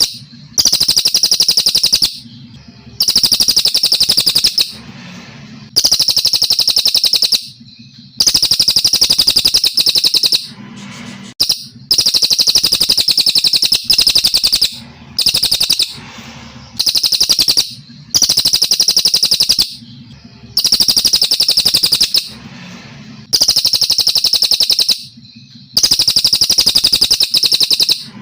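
Brown cililin songbird singing: a fast, high trill of rapidly repeated notes, delivered in phrases about two seconds long with short pauses between them, about ten times over.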